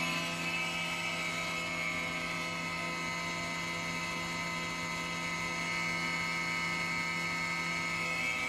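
Electric motor of a woodworking machine running steadily: an even hum with a high whine over it.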